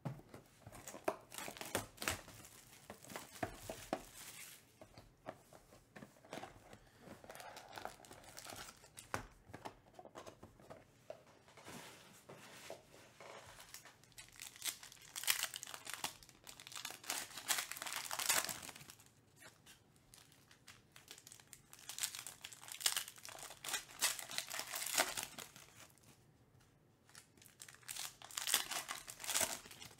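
Foil trading-card pack wrappers crinkling and tearing as packs are ripped open, in repeated bursts of crackling with short lulls between.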